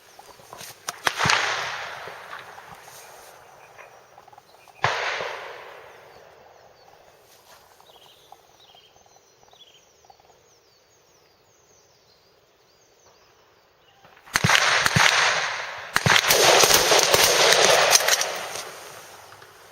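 Rifle fire on a range: a few separate shots in the first five seconds, each trailing off over a second or two, then a quick string of many overlapping shots from several AR-15-pattern rifles.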